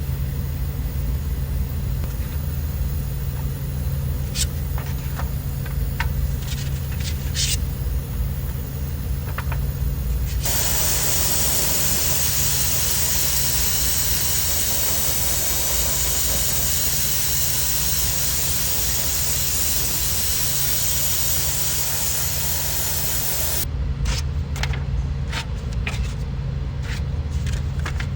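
A long, even spray hiss starts about ten seconds in and stops sharply about fourteen seconds later, over a steady low hum. Scattered sharp clicks come before and after the spraying.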